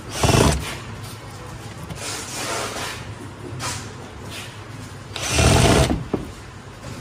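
Electric screwdriver with a long extension bit driving screws into a metal seat bracket, running in short whirring bursts: a loud half-second burst right at the start, a softer one about two seconds in, and another loud one about five seconds in.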